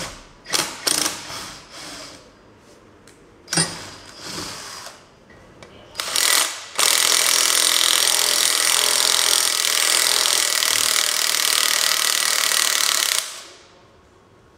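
Power tool working on the Peugeot 205 GTI rear beam axle during disassembly: a few short bursts, then one steady run of about six seconds that stops abruptly near the end.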